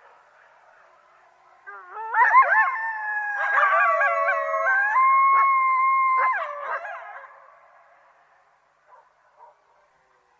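A group of coyotes howling together. A faint chorus gives way about two seconds in to quick wavering yips, then several long howls held at different pitches at once, which break off at about seven seconds.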